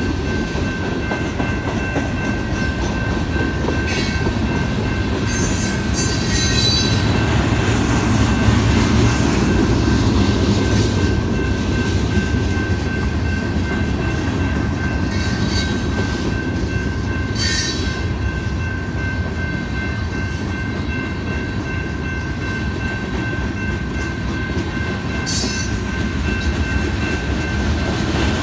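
Freight cars of a manifest train rolling steadily past: a constant low rumble of steel wheels on rail with clickety-clack, a steady high tone throughout, and a few brief high-pitched squeals or clanks scattered through.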